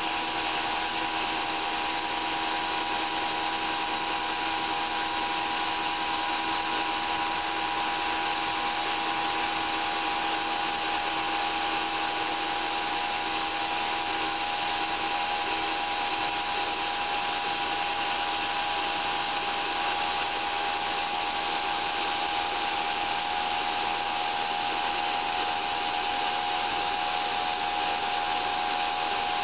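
Homemade sawmill running steadily through a cherry log, a constant machine noise with a steady whine that does not change.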